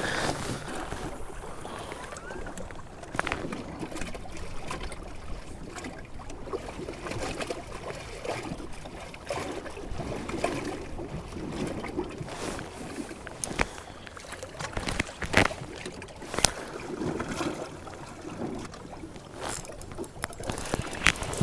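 Choppy lake water lapping against the hull of a small fishing boat, with a few sharp knocks scattered through it.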